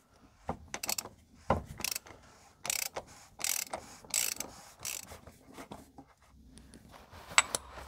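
Socket ratchet clicking in several short runs as a 36 mm socket loosens the oil filter housing.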